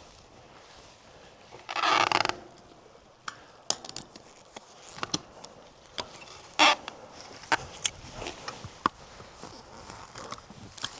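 Scraping and rustling with scattered sharp clicks from dismantling an old wire-netting fence. The loudest is a harsh scrape of about half a second near the two-second mark, with a shorter one a little past six seconds.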